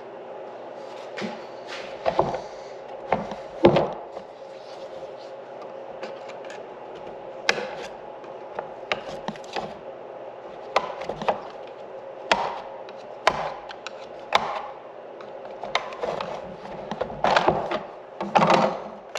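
Irregular knocks, clicks and clatter of planter parts and hand tools being handled during repair work, over a steady background hum.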